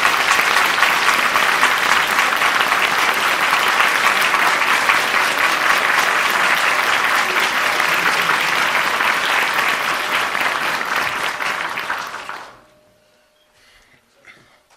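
Audience applauding, a dense steady clapping that dies away about two seconds before the end.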